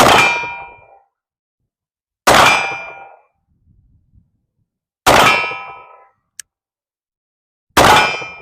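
Four sharp metallic clangs about two and a half seconds apart, each ringing out with several tones and fading over about a second.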